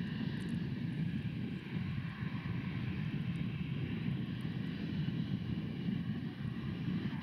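British Airways Airbus A320-232's IAE V2500 turbofan engines at takeoff thrust: a steady jet rumble with a fainter whine above it, as the airliner rolls down the runway and lifts off.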